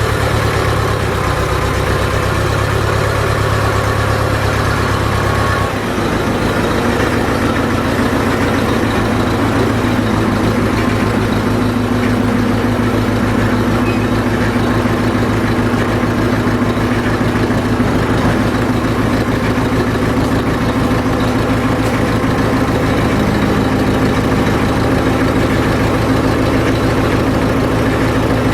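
Case 580CK backhoe loader's engine running steadily near idle. About six seconds in its note changes to a rapid, even pulsing.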